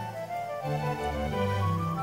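Instrumental background music: held notes over a bass line that moves step by step.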